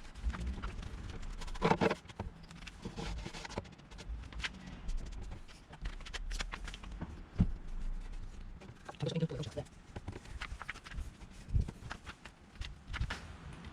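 Irregular knocks and clicks of objects being handled and set down, with a couple of brief voice sounds.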